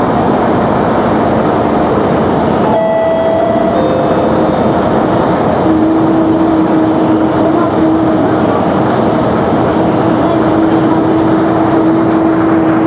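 Mercedes-Benz O405 city bus under way, heard from inside the saloon: its six-cylinder diesel and road noise run on as a loud, continuous rumble. A steady whine comes in about halfway through and holds.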